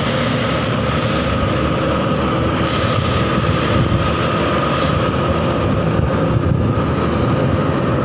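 Steady road traffic noise from close behind a coach bus: engine running and road noise, with a steady high whine.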